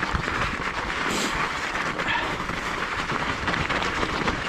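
Fat-tyre bike rolling over packed snow and loose stones: a steady crunching of tyres with dense rattling and clattering from the bike over the rough ground.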